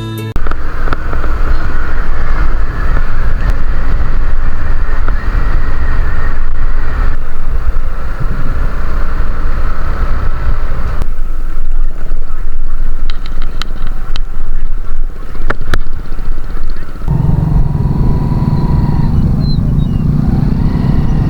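Motorcycle running while being ridden, loud and continuous, with its sound shifting and settling about 17 seconds in.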